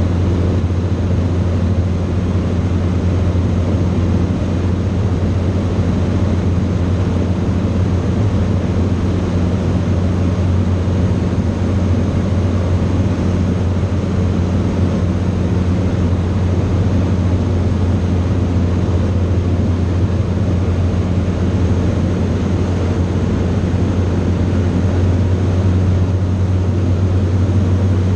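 Steady drone of a light aircraft's engine and propeller in flight, heard inside the cockpit: a loud, even low hum with a constant hiss over it.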